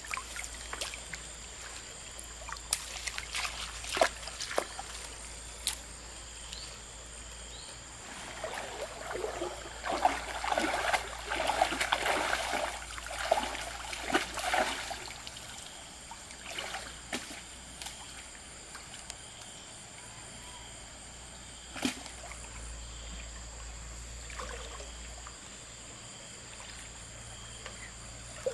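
Water trickling and splashing, with a busy stretch of splashing and sloshing in the middle and a few separate splashes elsewhere.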